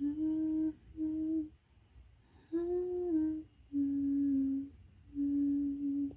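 A person humming a slow tune of five held notes, each about a second long with short pauses between, the middle note a little higher and the last two lower.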